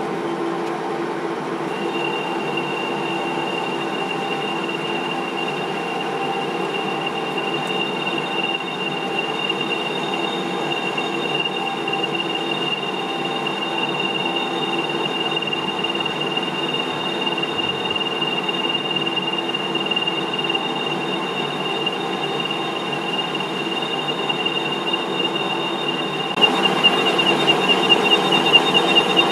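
Metal lathe running, with a steady hum and a steady high-pitched whine that sets in about two seconds in. Near the end the sound turns louder and rougher, and the whine begins to flutter.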